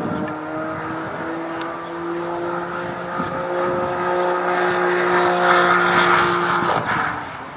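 BMW race car engine at high revs, its note climbing steadily as it grows louder, peaking about three quarters of the way through, then falling away abruptly near the end.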